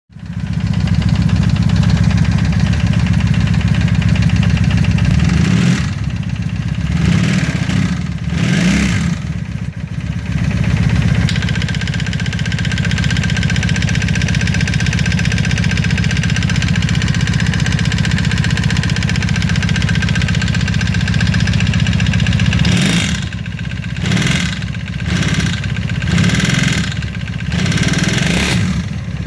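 1995 Honda Magna motorcycle engine running with a knocking noise, revved a few times about a third of the way in and again near the end. The uploader is unsure whether it is cam chain tensioner or valve noise.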